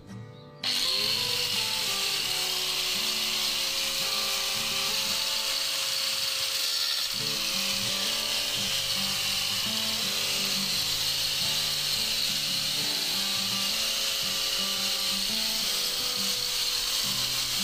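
Doliz BA730 angle grinder switched on about half a second in, its motor spinning up with a rising whine, then running steadily at speed as its ceramic-cutting disc grinds through a ceramic tile with a high-pitched grinding noise.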